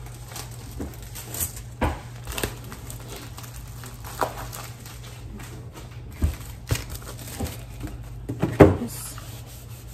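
Packing noises: white plastic packaging rustling and crinkling in the hands, with scattered light knocks and taps, the loudest a knock about eight and a half seconds in.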